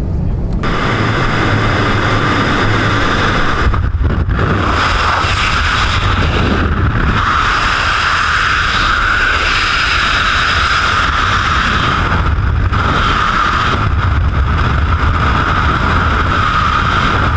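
Loud, steady rush of freefall wind across a skydiver's camera microphone, with a few brief dips in the roar.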